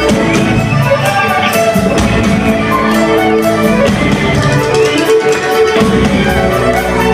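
Celtic folk-rock band playing a song live and loud, with held melody notes over a steady drum beat, heard from within the crowd.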